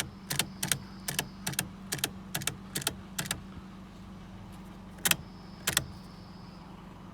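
A run of sharp clicks, about two to three a second, that stops after about three and a half seconds; two more clicks follow near the end, over a steady low hum.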